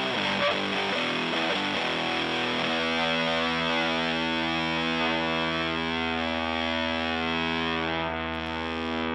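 Electric guitar (American Stratocaster) through a Power2 fuzz pedal into a Fender Blues Junior amp, heavily distorted. It plays a short riff, then from about three seconds in a chord is held and left to sustain, its brightness slowly fading.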